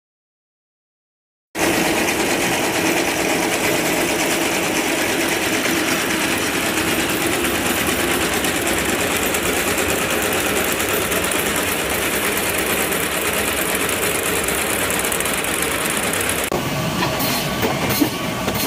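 A small workshop machine with a row of spinning discs over a chain conveyor runs with a dense, steady clatter, starting about a second and a half in. Near the end it gives way to an industrial band saw cutting through a fish loin, with uneven sharp ticks.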